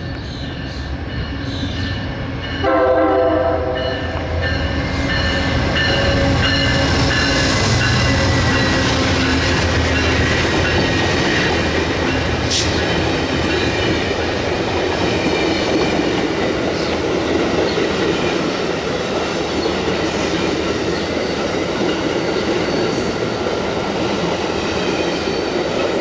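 Amtrak GE Genesis diesel locomotive approaching with one short air-horn blast about three seconds in. Its passenger cars then roll past close by, a steady noise of wheels on the rails.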